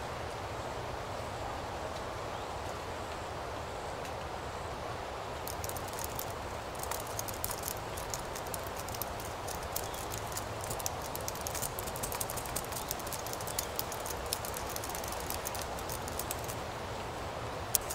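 Fingers typing on a laptop keyboard: quick, irregular key clicks that start about five seconds in and stop shortly before the end, followed by one sharper single key press. Under it, steady background noise.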